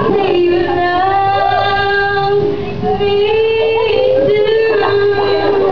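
A girl's solo singing voice through a microphone, holding long drawn-out notes in two phrases, with a short break about halfway through.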